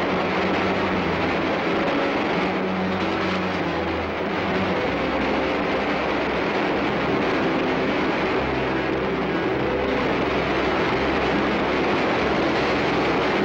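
Loud, steady rush of floodwater pouring through the tunnels.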